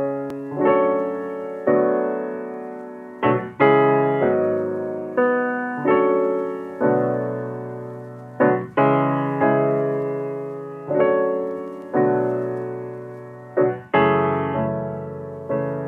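Background piano music: chords struck about once a second, each left to ring and fade.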